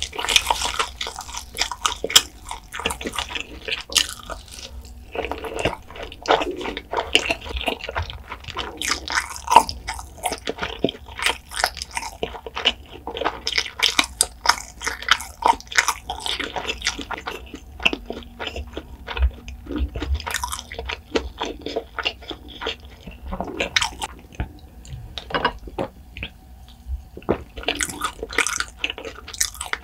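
Close-miked chewing of sauce-coated fried chicken: wet mouth sounds with many small, sharp crunching clicks.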